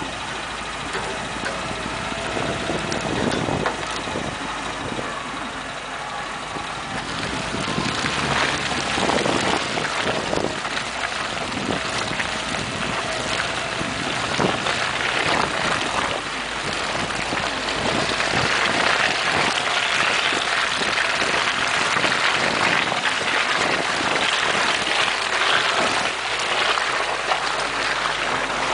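Suzuki SJ410's small four-cylinder engine running as the jeep drives over a rutted snowy track, a steady engine note at first. From about seven seconds in, a louder rushing noise covers it, with scattered knocks as the vehicle bumps through the ruts.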